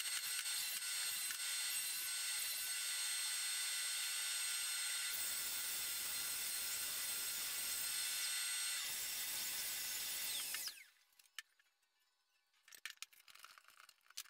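A small handheld power tool running with a steady high whine. It sounds heavier for a few seconds in the middle as it bites into the wood, then switches off about three-quarters of the way in, leaving a few faint knocks.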